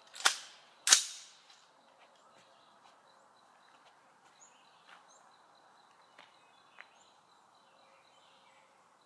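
Two sharp gunshots about half a second apart, the second louder, each with a brief ringing tail.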